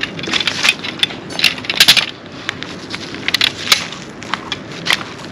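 Irregular sharp clicks, knocks and clatters of hard objects being handled, several a second, bunched around one to two seconds in and again around three to four seconds in.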